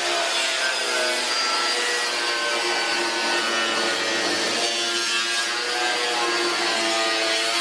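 Angle grinder cutting through car-body sheet metal, running continuously with a whine that drifts up and down in pitch as the disc bites.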